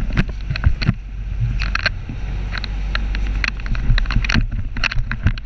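Sportfishing boat under way: a steady low rumble of the engine and rushing water, broken by many irregular sharp knocks and clicks.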